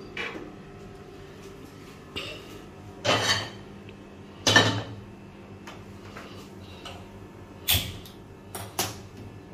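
Kitchen clatter at a gas stove: a few separate knocks and clinks of a cooking pan and utensils, the loudest about four and a half seconds in, with sharp clicks near the end.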